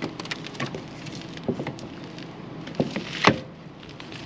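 Clicks and knocks of a plastic RV sewer hose fitting being handled and twisted at a travel trailer's waste outlet: a scatter of short sharp knocks, the loudest a little past three seconds in.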